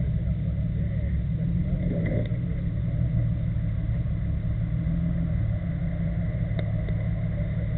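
A Jeep Cherokee's engine running steadily at low revs, heard as an even, deep rumble.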